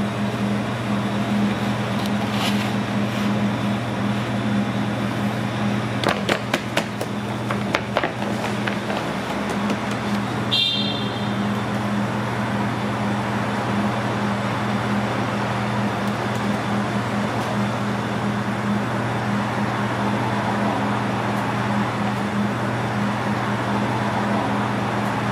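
Steady low machine hum with two held low tones under a rushing noise. A few light clicks come about six to eight seconds in, and a short high chirp sounds about ten and a half seconds in.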